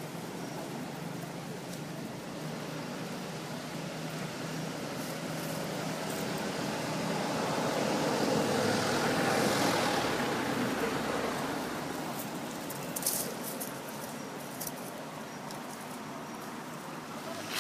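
A motor vehicle passing by, its noise swelling gradually to its loudest about midway and then fading away, with a few short clicks afterwards.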